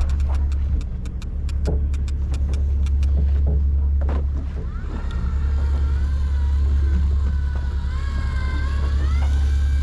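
Electric fishing reel motor whining as it winds line up from the deep, starting about five seconds in, its pitch stepping up near the end as it speeds up. Under it runs a steady low engine drone, with a run of sharp clicks in the first few seconds.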